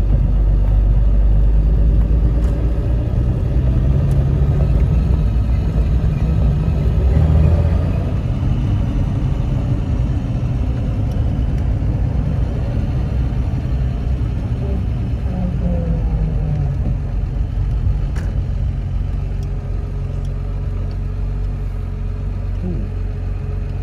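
Jaguar Mk 2's XK straight-six engine and road noise heard from inside the cabin while driving: louder for the first several seconds, then easing to a quieter, steadier run about eight seconds in.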